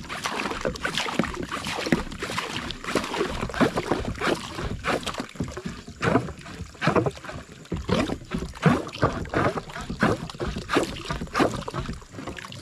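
Water splashing and sloshing with irregular knocks and rustling as hands work at the rear hatch of a swamped plastic fishing kayak from chest-deep water. A quick uneven patter of short strokes, with no steady rhythm.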